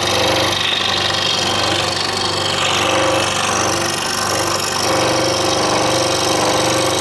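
Scroll saw running steadily with a constant hum, its blade cutting through a wooden puzzle board.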